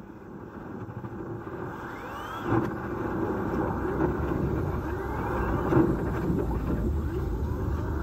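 Compressed-air cleaning tool working inside a dryer vent duct: air rushing as lint and dust blow out of the exterior vent, a rumbling rush that gets louder about two and a half seconds in.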